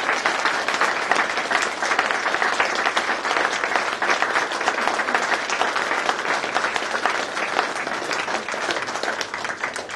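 A roomful of people applauding, a steady round of clapping that eases off at the very end.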